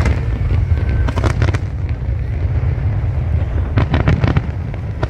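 Fireworks going off: a continuous low rumble of booms, with clusters of sharp crackling bangs about a second in and again near four seconds.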